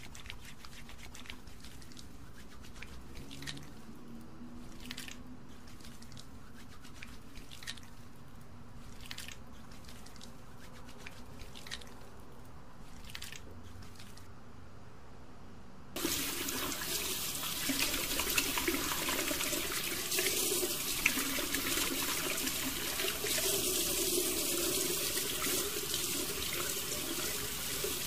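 Soapy hands rubbing together over a washbasin with faint wet squishes, then about halfway through a tap turns on abruptly and water runs into the sink as the hands are rinsed under it.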